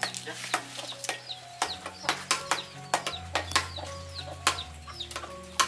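Knives and a cleaver chopping and paring young wood apples: sharp, irregular cutting knocks, about two to three a second. Soft background music underneath.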